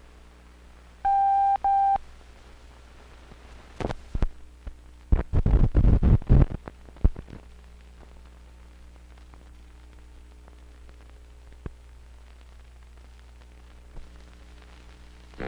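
Old film soundtrack between commercials: a steady beep tone, broken once, about a second in. It is followed by a burst of crackling pops and clicks from splices and dirt on the optical track, all over a faint steady hum.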